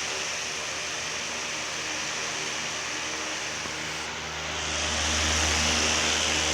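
Tron AT-50 standing fan running: a steady rush of moving air with a faint motor hum. About four and a half seconds in, the air noise grows louder and a low hum swells.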